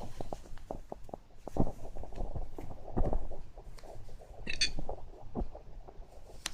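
One short, high hiccup about two-thirds of the way through, over scattered soft low thumps and handling knocks.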